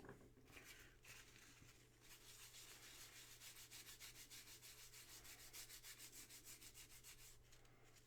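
Faint, quick back-and-forth rubbing, settling into a steady rhythm of several strokes a second about two seconds in: a part of a vintage jeep headlight switch being scrubbed clean with isopropyl alcohol to lift a thick, gummy film.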